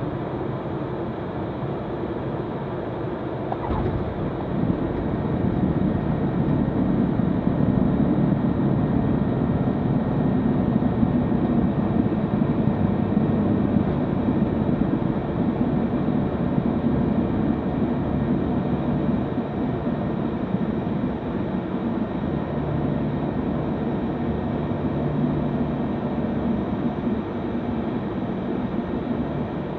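Cockpit noise of an Eclipse 500 twin-turbofan light jet on its landing rollout: a steady rumble of engines, wheels and airflow that grows louder about four seconds in, then slowly eases as the jet slows on the runway.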